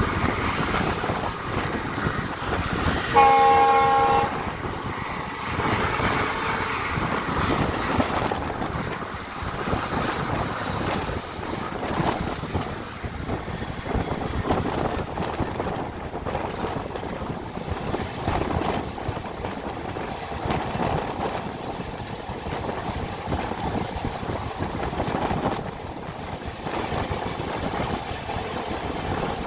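WDP4B diesel locomotive horn sounding one blast about a second long, a few seconds in, over the steady running noise of the moving passenger train.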